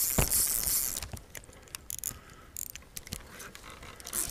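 Spinning reel ratcheting while a hooked fish is fought: a fast, dense buzz for about the first second, then scattered clicks.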